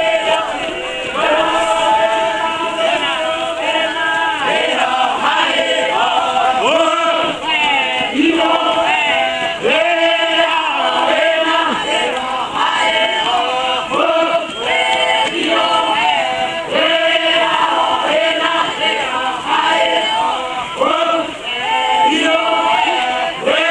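A large group of men and women chanting and singing together, a traditional Papuan festival dance song, with many voices overlapping without a break.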